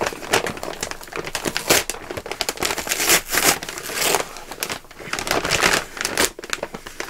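An Amazon shipping envelope being handled and opened by hand, with irregular crinkling and rustling of the packaging in bursts of varying loudness.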